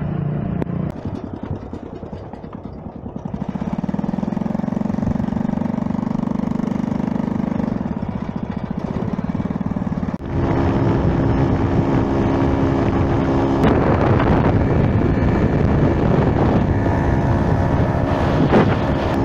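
Small motorbike engine running steadily. About halfway through it gets suddenly louder as the bike rides along the road, the engine joined by an even rushing noise of wind and road.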